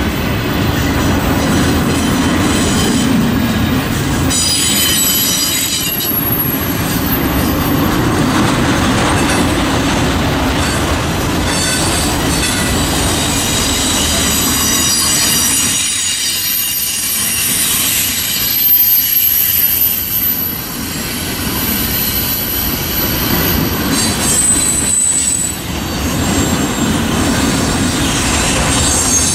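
Freight train of flatcars rolling steadily past a road crossing: a continuous rumble of steel wheels on rail, with high, thin wheel squeal coming and going.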